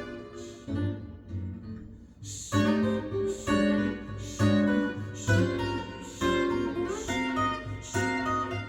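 Music: an instrumental passage of acoustic guitar strummed chords. Softer for the first two seconds or so, then strong strums about once a second.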